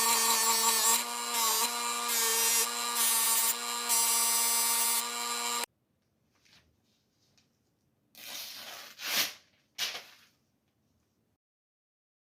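An electric power tool runs with a steady whine and a rasping, grinding contact noise that comes and goes, then cuts off abruptly about six seconds in. A few short rubbing or scraping sounds follow.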